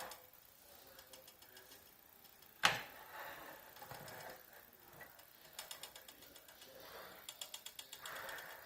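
Small gears and running gear of a Payá Santa Fe O-scale electric toy locomotive clicking and rattling in quick runs of ticks. There is one sharp knock about a third of the way in.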